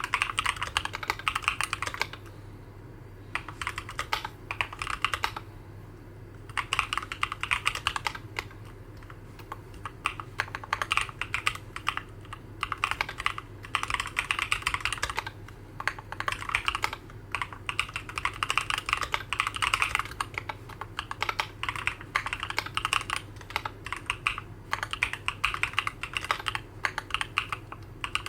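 Typing on a Keychron Q11 mechanical keyboard with Durock Black Lotus linear switches and ABS single-shot keycaps, the board modded to be quieter: bursts of fast keystrokes, a couple of seconds each, with short pauses between them.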